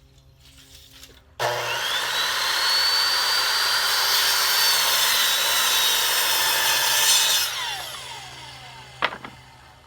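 Electric power saw cutting a Trex Transcend composite deck board. It starts suddenly, runs steadily with a high whine for about six seconds, then winds down with falling pitch. A sharp click comes near the end.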